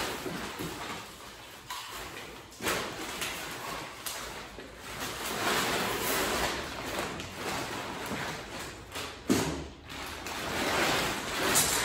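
Plastic tarp sheeting rustling and crinkling as it is handled, with a couple of sharp knocks, the louder one about nine seconds in.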